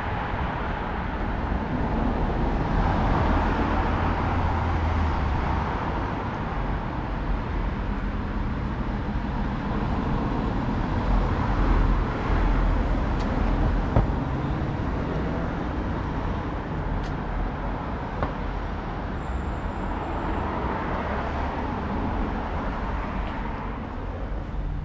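Road traffic on a city street: a steady rumble of engines and tyres, with passing vehicles swelling louder a few seconds in and again around the middle.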